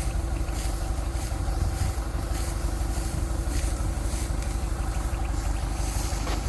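Rice combine harvester's engine running steadily, a continuous low drone with no change in speed.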